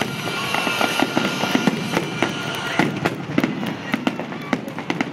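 Fireworks display: a dense, continuous run of sharp bangs and crackles in quick succession.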